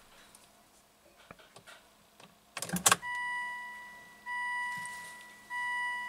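With the engine just shut off, a short knock is followed by a car's electronic warning chime: a steady beep that repeats about every second and a quarter, three times, each tone fading as it goes.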